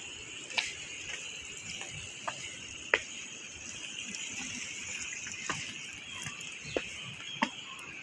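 Steady insect chorus, high and continuous, with a few sharp taps or clicks scattered at irregular intervals.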